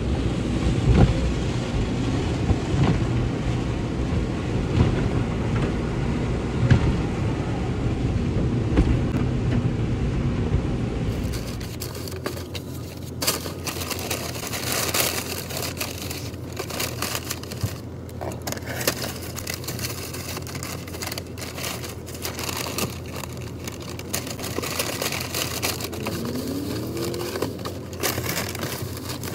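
Automatic car wash heard from inside the car: a loud, steady rush of water spray and brushes over the car for about the first eleven seconds. Then the sound changes to paper food packaging crinkling and rustling as takeout food is handled in the parked car.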